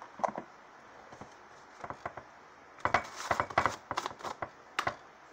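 Short clicks, taps and scrapes of a spoon and containers being handled while a baking soda and coconut oil paste is measured out, coming in scattered small clusters and busiest from about three seconds in.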